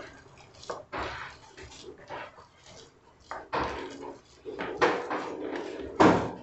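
Hand squeezing and mixing a soft, wet corn dough in a clay bowl: irregular squelches and slaps, with a louder knock of the bowl about six seconds in.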